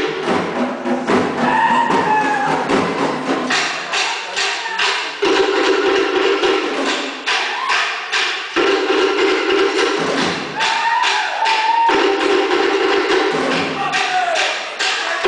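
Cook Islands drum ensemble beating a fast, driving rhythm on wooden slit drums and skin drums to accompany a group dance. Short shouted voice calls cut in now and then.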